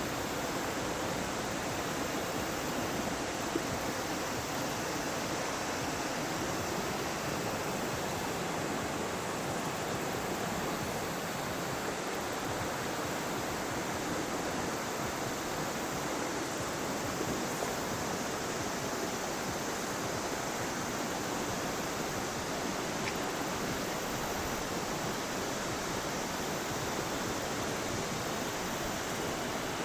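River water rushing steadily over rocks, an even flowing hiss.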